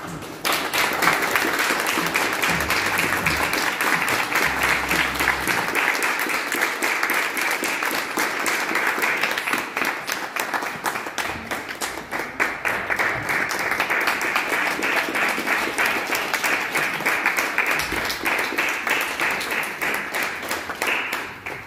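Audience applauding: a dense, steady clapping that starts suddenly just after the start and dies away near the end.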